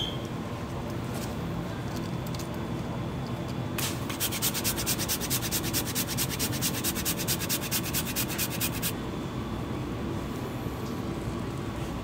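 Fast, even scraping strokes in kitchen food preparation, about eight a second for some five seconds, starting about four seconds in, over a steady kitchen hum.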